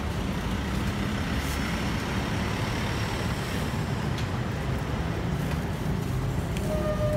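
Road traffic noise: a steady low rumble of passing and idling vehicles, with a few faint clicks.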